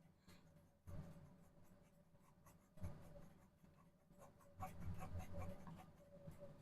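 Soft scratching of a paintbrush stroking acrylic paint onto the painting surface. It comes in a few separate strokes, then a busier run of strokes about two-thirds of the way through, over a faint steady hum.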